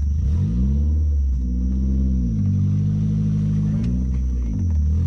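Vehicle engine running low and loud, its pitch climbing and falling back about three times as it is revved up and eased off while manoeuvring over rough ground.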